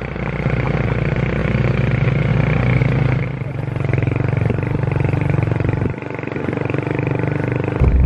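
Motorcycle engine running under way on a rough dirt trail. The engine note eases briefly about three seconds in and again near six seconds.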